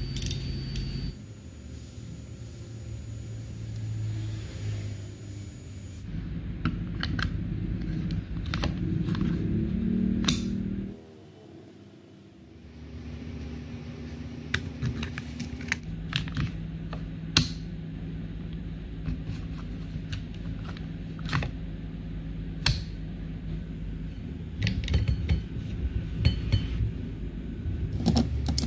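Handling noise on a machined-metal airgun: scattered sharp clicks and knocks as a small adjuster wheel and a numbered dial on the action are turned and parts are worked, over a steady low hum. The clicks come closer together near the end.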